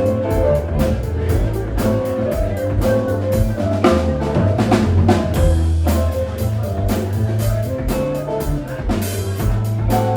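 Live rock band playing: electric guitar, bass, keyboards and a drum kit keeping a steady beat.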